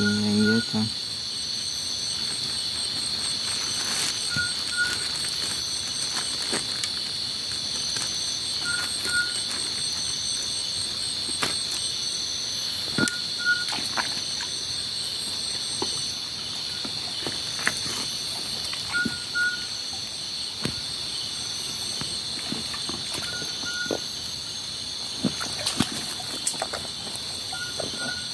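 Night insect chorus: a steady shrill drone with a faster pulsing trill above it, and a short double chirp repeating every four to five seconds. Scattered clicks and rustles of footsteps and handling in wet leaf litter, more of them near the end.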